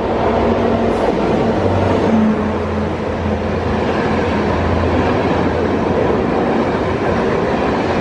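Locomotive-hauled passenger train running past close by, its coaches rolling by in a steady, loud rush of wheel and track noise with a low hum underneath.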